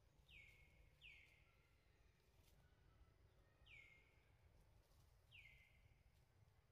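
Faint bird calls: four short notes, each falling sharply in pitch, coming at uneven intervals over a faint low background rumble.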